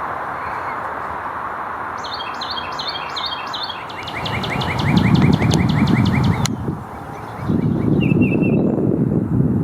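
Carolina wren singing: a few repeated ringing phrases, then a fast run of rapid notes that cuts off abruptly about six and a half seconds in, and a short phrase near the end. A low rumbling noise from about four seconds in is louder than the bird.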